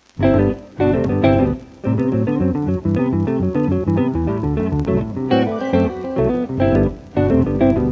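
Guitar music: plucked notes in quick, choppy runs that start abruptly, with brief stops about half a second and just under two seconds in.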